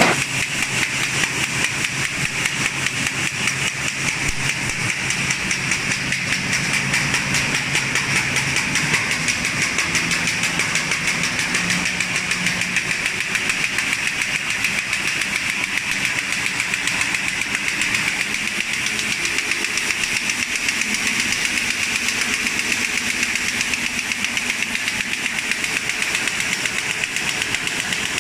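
Manzoni Seriana 31 paper bag-making machine running at speed, its bag-forming mechanism giving a rapid, steady clatter.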